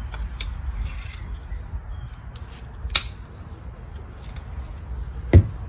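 Clicks and knocks of a convertible kayak-SUP paddle's shaft and blade sections being handled and fitted together: a few light clicks, a sharper clack about three seconds in, and a louder knock near the end.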